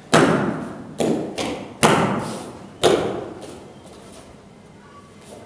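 Pencak silat performer's slaps and stamps in a solo routine: five sharp smacks in about three seconds, each trailing off, then a few fainter taps.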